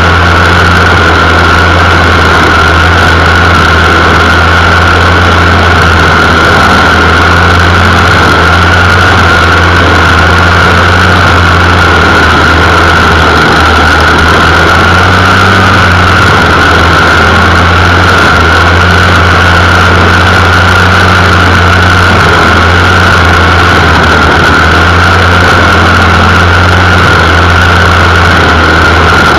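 Gas string trimmer (weed eater) engine running steadily and very loud, heard from right on the trimmer's shaft.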